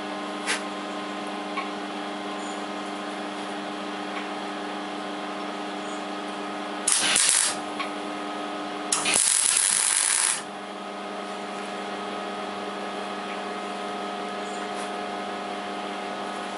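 Two electric welding tack welds on the steel frame: a short burst of arc crackle about seven seconds in, then a longer one of about a second and a half, over a steady electrical hum.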